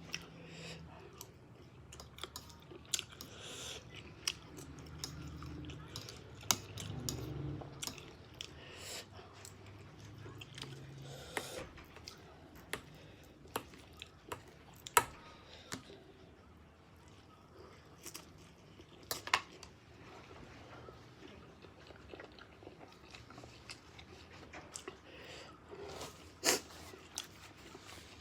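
A person chewing spicy instant noodles, with sharp wet mouth clicks scattered throughout, the loudest about halfway through and near the end.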